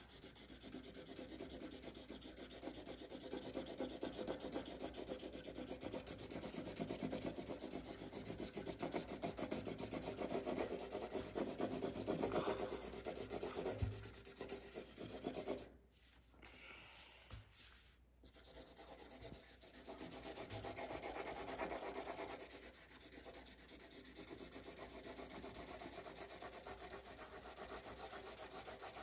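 Felt-tip marker scribbling rapidly back and forth on paper over a wooden table, colouring in a large area with steady strokes. The scribbling breaks off briefly twice, about halfway through.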